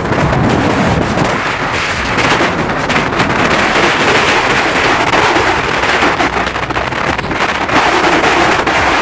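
Strong wind blowing over the microphone: a loud, steady rush with crackling from the gusts buffeting it.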